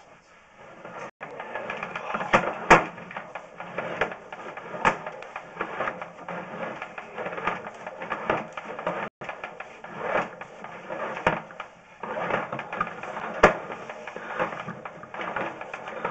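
Sewer inspection camera's push cable being pulled back out of the drain line: uneven clicking and rattling, with sharper clacks about three seconds in and again near thirteen seconds.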